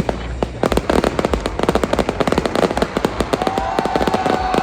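Fireworks going off in a rapid run of sharp crackles and pops, many a second. A steady whistle-like tone joins for the last second and a half.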